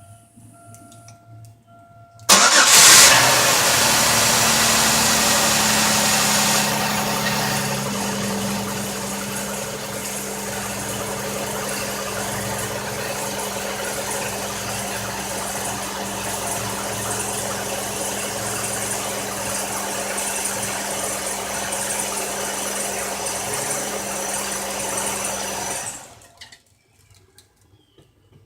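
A faint interrupted electronic tone sounds first. About two seconds in, a Buick's engine starts abruptly and runs for roughly twenty seconds with a bad misfire, louder at first and then settling, before being shut off. The roughness comes from failed intake gaskets that have let coolant mix with the engine oil.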